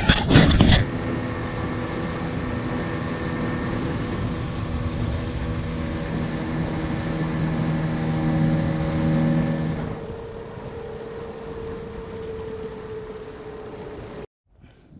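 Small outboard motor pushing an inflatable dinghy, running steadily with a humming drone. About ten seconds in it drops to a quieter, lower hum with a slowly falling pitch as it slows, then stops abruptly near the end.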